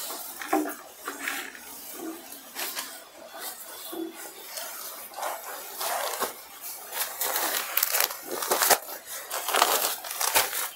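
Stiff silk saree fabric rustling and crinkling in irregular bursts as it is handled and folded, the rustling getting busier and louder about halfway through.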